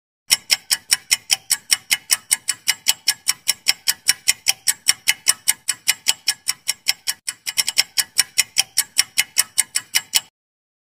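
Countdown timer sound effect: a clock-like ticking at about five sharp ticks a second. It starts a moment in, stumbles briefly about seven seconds in, and cuts off suddenly near the end.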